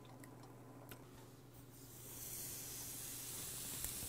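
Slab of wagyu top blade steak sizzling on a small hot tabletop grill plate, the sizzle starting about halfway in as the meat goes on and then holding steady.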